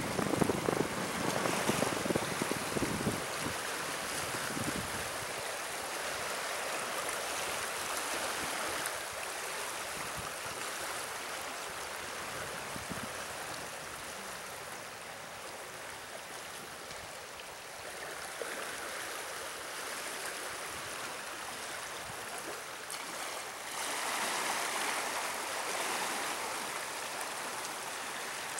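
Water rushing and churning out of the gates of a canal check structure, a continuous steady rush. Gusty low rumble of wind on the microphone in the first few seconds.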